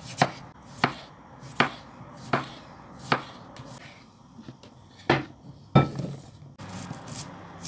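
Kitchen knife slicing peeled potatoes thinly on a wooden cutting board, the blade knocking the board about every three-quarters of a second. Around five seconds in come two louder knocks and a rustle as the board is tipped and the potato slices slide off into a glass bowl.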